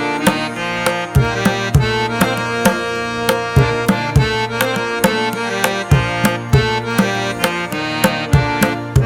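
Background music: a steady beat of hand-drum strokes under a sustained melodic instrument line.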